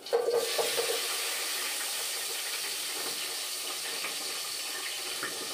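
Chopped onions tipped into hot oil in a pot, sizzling at once and then frying with a steady hiss.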